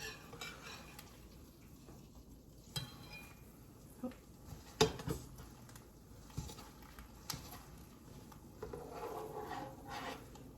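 Metal spatula clinking and scraping against a frying pan while eggs are worked in it, a scattering of separate sharp clinks with the loudest about halfway through.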